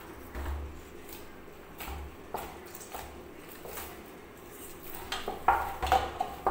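Hands kneading and punching a stiff ball of flour dough in a large stainless steel bowl. The dough and hands land in irregular dull thuds, with short metallic knocks from the bowl, which grow louder near the end.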